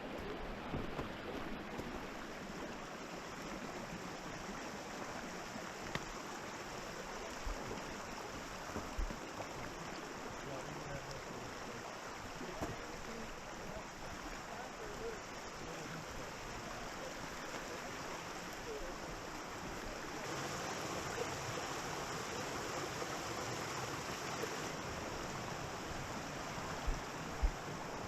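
Steady rush of flowing creek water, growing louder about twenty seconds in, with a few soft thumps near the end.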